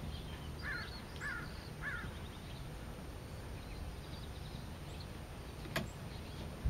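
Outdoor ambience with a low steady rumble, over which a bird calls three times in quick succession about a second in; a single sharp click comes near the end.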